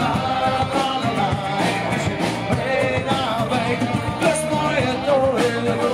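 A live rock band playing: a man singing lead over strummed guitars, electric bass and a drum kit.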